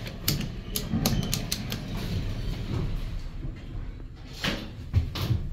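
Hydraulic elevator machinery: a steady low hum with a run of irregular sharp clicks, then a few heavier knocks near the end.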